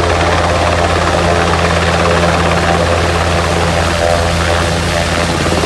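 Sikorsky S-92 helicopter hovering low as it comes in to land: the rotor and its twin turboshaft engines make a loud, steady drone.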